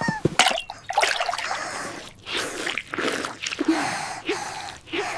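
Cat lapping and slurping milk with wet, dripping sounds, mixed with gasping breaths after eating a hot chili.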